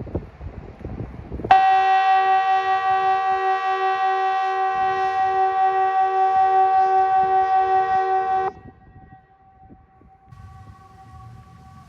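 Kockum Sonics ET 751 electronic civil defence siren sounding a single steady, many-toned blast of about seven seconds, with a fast flutter in its lower tones; it starts and cuts off abruptly. This is one blast of Sweden's 'Important message to the public' warning signal, sounded in the quarterly test. A much fainter steady tone carries on after it stops, over wind noise.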